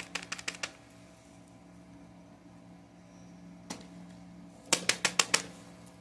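Runs of sharp, quick clicks: about six in a row at the start, a single click a little past the middle, and another quick run of about six near the end, over a faint steady hum.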